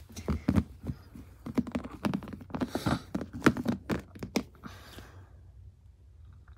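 Handling noise: a quick run of small knocks and taps with a couple of brief rustles, as plush toys are moved about and set down on a tabletop, dying away about five seconds in.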